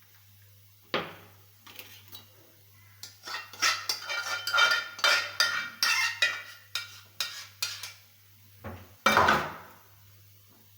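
Dishes and metal cutlery clinking and clattering: one knock about a second in, then several seconds of quick rattling clinks, and a heavier clunk near the end.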